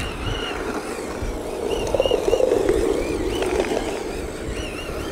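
MST RMX 2.5 brushed 1/10 RC drift car driving: the electric motor gives a thin whine that rises and falls with the throttle, over tyres scrubbing on rough asphalt, loudest about two seconds in. Wind rumbles on the microphone.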